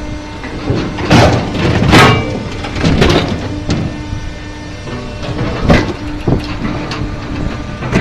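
GROWI fully automatic hydraulic log splitter running with a steady hum from its motor and pump. About half a dozen loud, sharp cracks and knocks break through it as heavy log rounds bang against the steel infeed and split.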